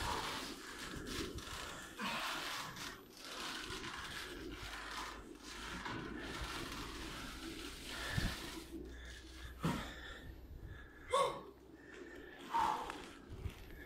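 A person breathing hard in gasps from exertion, with a few short knocks and brief vocal sounds in the second half.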